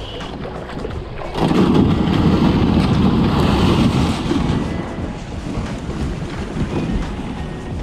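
Yellow plastic kayak being paddled into shallow water at the bank. A loud, rough, low rumble from about 1.5 to 4 seconds in is typical of the hull grinding over the stony stream bottom as the kayak runs aground.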